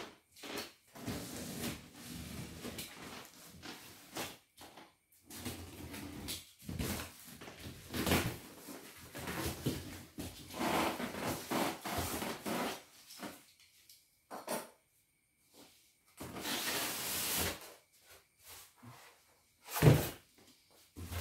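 Unpacking a parcel: plastic wrap and packing tape pulled and torn off a cardboard box, with irregular rustling and scraping of plastic and cardboard, and a short sharp knock near the end.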